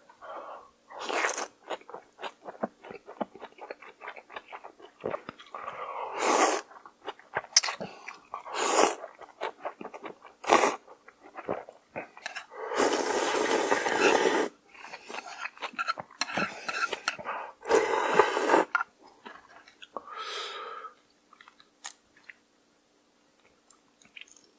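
Mouth sounds of eating cold raw-seafood soup with somen noodles: steady wet chewing with many short smacks, broken by noodle slurps, the longest about halfway through.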